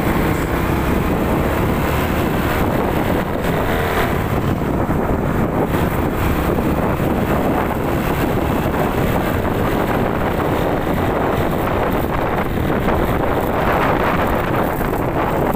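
Steady wind rushing over the microphone of a motorcycle rider on the move, a dense, even noise with the vehicle's running sound mixed in.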